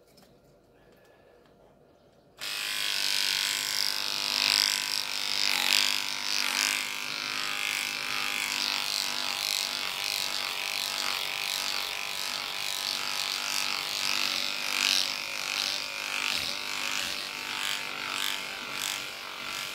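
Electric hair clipper switching on about two seconds in, then buzzing steadily as it is run over a cat's fur.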